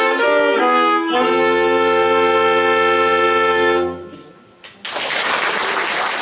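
Brass band playing the closing bars of a song and ending on a long held chord that cuts off about four seconds in; about a second later the audience breaks into applause.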